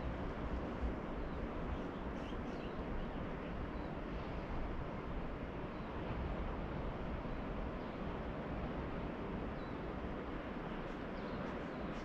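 Steady wash of distant ocean surf, with faint short bird chirps here and there above it.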